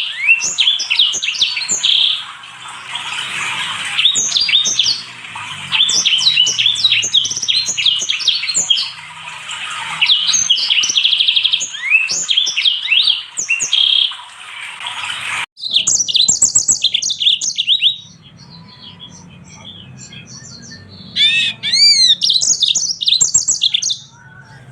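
Small finches singing a rapid, dense twittering song of chirps and trills. About two-thirds of the way through it cuts off abruptly to a sparser song with quick chips and slurred whistles, the loudest of them near the end.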